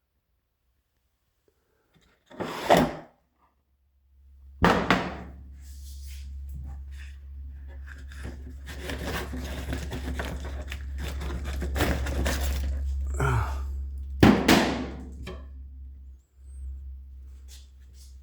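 Knocks and scraping of things being handled, over a steady low rumble that starts about four seconds in and cuts off abruptly near the end.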